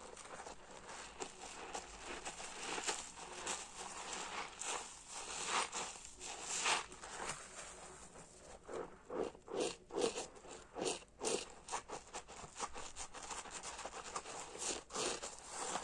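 A hard soap-loaded sponge being squeezed and worked, its thick foam crunching and crackling in quick, irregular strokes, with the loudest squeezes about nine to eleven seconds in.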